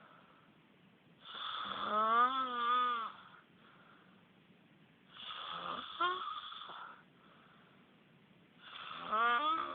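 Snoring: three snores about three and a half seconds apart. Each begins as a rasp and carries a wavering, moan-like tone, with quiet breathing between them.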